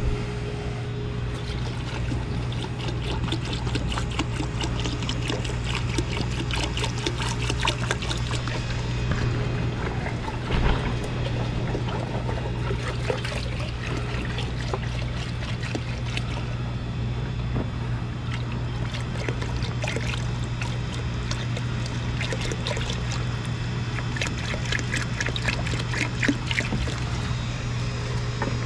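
Citrus descaling solution trickling and splashing as it is flushed through a tankless water heater to dissolve built-up scale, over a steady low hum.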